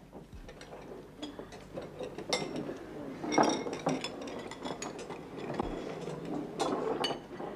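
Spoons clinking against metal bowls as several people eat: scattered, irregular clinks with a brief ring, the loudest about three and a half seconds in.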